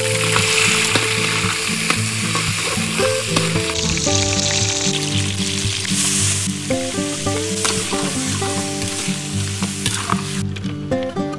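Mud crab pieces and minced garlic sizzling as they fry in hot oil in a metal wok, turned with a metal ladle. The sizzle dies away about ten seconds in. Background music plays underneath.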